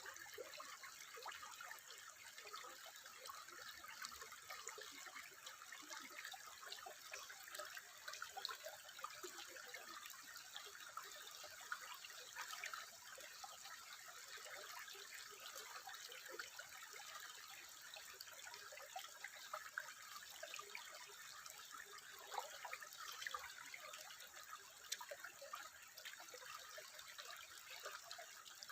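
Water trickling steadily and faintly, with many small drips and plinks scattered throughout.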